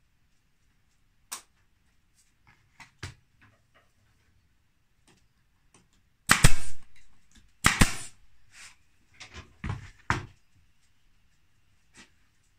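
Pneumatic staple gun driving U-shaped staples through a pine batten into pallet board: several sharp shots about halfway through, the first two loudest and about a second and a half apart, followed by softer ones. Faint knocks from handling the wood come before them.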